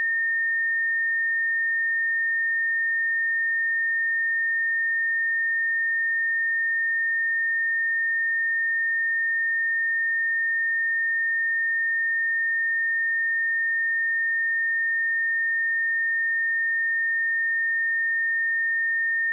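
A pure 1825 Hz sine-wave test tone, held steady at one pitch and level.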